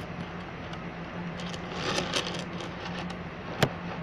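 Hand handling noise close to a laptop microphone: rustling and light taps about two seconds in, then one sharp click near the end, over a steady low hum.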